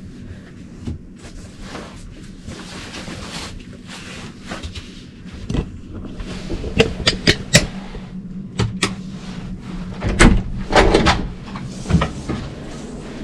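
A run of sharp knocks and clicks over a steady low hum. The knocks come in clusters in the second half, the loudest about ten seconds in.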